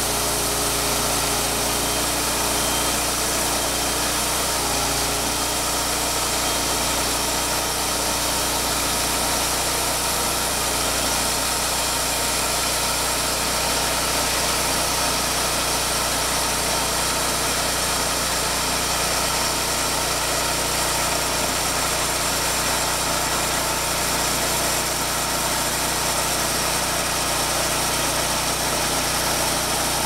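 Portable band sawmill running: its small gasoline engine holds a steady speed while the band blade saws lengthwise through a log.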